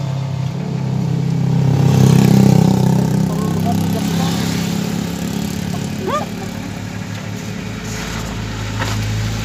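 Motorcycle engine idling steadily, briefly getting louder about two seconds in before settling back.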